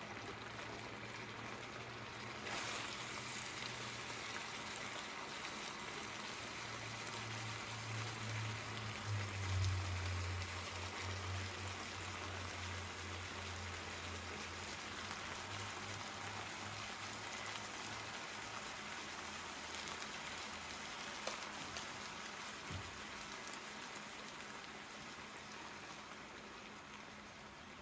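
Shrimp and cabbage stir fry sizzling in a hot pot: a steady crackling hiss that eases off a little near the end, with a low hum under it in the first half.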